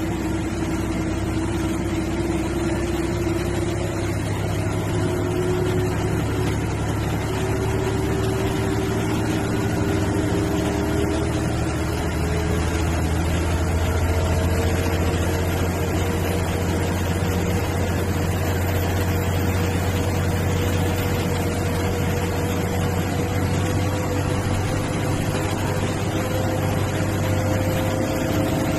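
An MSRTC bus's engine running steadily under way, with a low drone and a tone that climbs slowly in pitch as the bus gathers speed.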